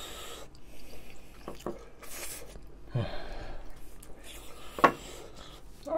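Close-up mouth sounds of a man chewing a hot mouthful of kimchi fried rice, with breathy huffs through pursed lips because the food is too hot. A sharp click sounds near five seconds in.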